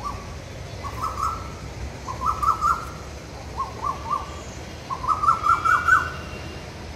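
A bird calling in four short bursts of rapid repeated notes, the last burst the longest and loudest, with faint chirps of other birds in the background.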